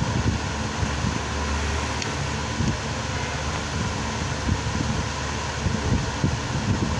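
Steady background noise with an irregular low rumble throughout, and a faint click about two seconds in.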